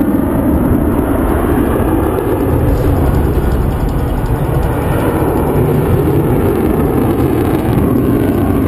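F-16 fighter jet flying at a distance: loud, steady jet engine noise.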